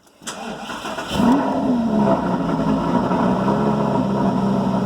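Lamborghini Gallardo LP560-4's V10 being cranked and firing up on the stock exhaust. It flares in revs about a second in, then settles into a loud, fast startup idle.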